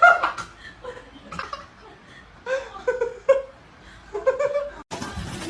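A person laughing and giggling in short bursts. About five seconds in the sound cuts off abruptly and a steady background hiss from another recording takes over.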